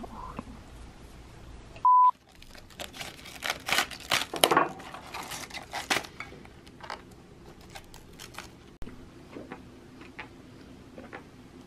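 A single short electronic beep about two seconds in, then a few seconds of busy clicking and clattering of utensils on a pan and plate, thinning to scattered clicks over a faint low hum.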